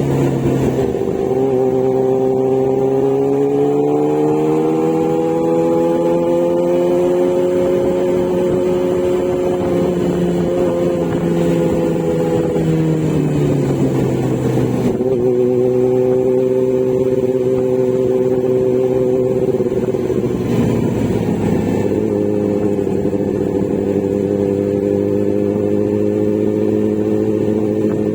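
Motorcycle engine running under way, its pitch climbing slowly over the first several seconds, dropping about thirteen seconds in, then holding fairly steady.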